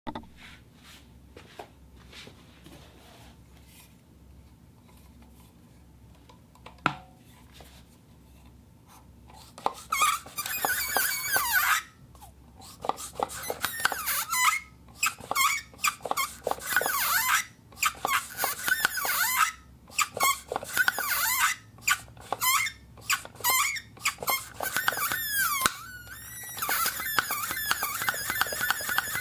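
Rubber suction cup squeaking as it is worked against a smooth surface, in quick runs of high squeaks with short gaps. The squeaking starts about a third of the way in, after a quiet stretch with a few small clicks and one light knock.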